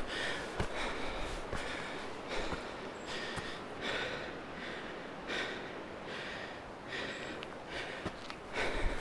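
A hiker breathing hard while climbing a steep trail, a heavy breath about every three-quarters of a second.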